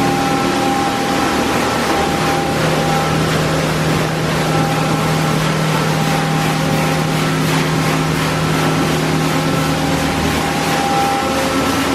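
Automatic car wash running: water spraying onto a car in a steady loud hiss, over the hum of its pumps and motors, whose tones drop in and out.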